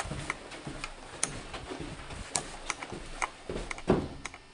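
Footsteps along a hard corridor floor: light, sharp clicks and taps about two a second, with a louder knock near the end.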